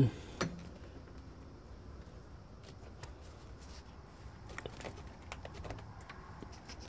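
Faint scattered clicks and rustles of wires and push-on spade connectors being handled at an air conditioner's run capacitor terminals, with the unit powered off and silent.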